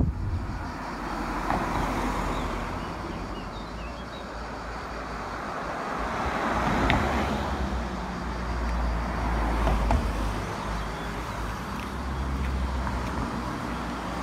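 Road traffic: cars passing on a street, a steady rush of tyres and engines that swells and fades, loudest about seven seconds in.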